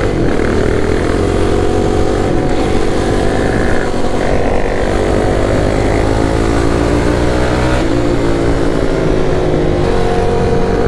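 Motorcycle engine pulling hard under the rider, its pitch climbing through each gear and dropping at a shift about two and a half and eight seconds in, over steady wind rush.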